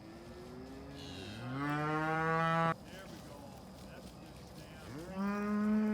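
Cows mooing: two long moos, the first swelling over a second or so and ending abruptly, the second starting near the end.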